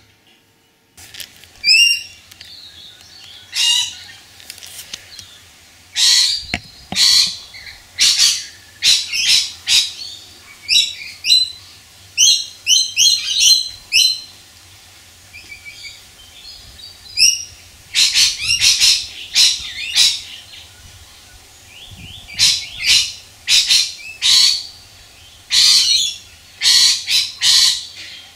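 Birds chirping and calling close by: clusters of short, sharp, high calls, often several in quick succession, with brief gaps between. A faint low hum runs underneath.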